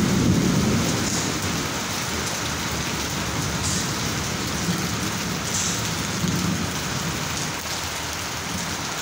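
Heavy monsoon rain falling steadily, an even hiss of rain on the ground and roadway. A low rumble in the first second or so eases off.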